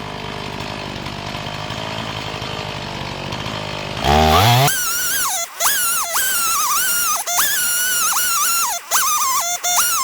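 Gas chainsaw running steadily, then revving up about four seconds in. After that comes a high, wavering squeal that keeps dipping in pitch and breaking off.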